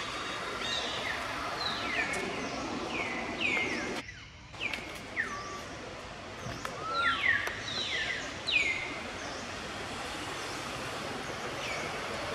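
Birds calling outdoors: many short whistled notes, each sliding down in pitch, over a steady background hiss. The calls thin out over the last few seconds, and the sound drops out briefly about four seconds in.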